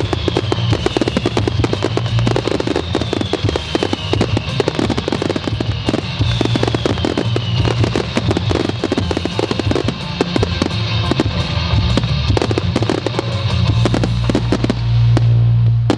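Fireworks grand finale: a dense, continuous barrage of rapid bangs and crackles, loudest near the end, with music underneath.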